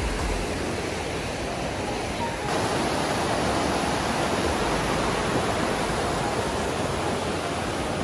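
Fast-flowing river water rushing in a steady, even noise. It gets a little louder about two and a half seconds in.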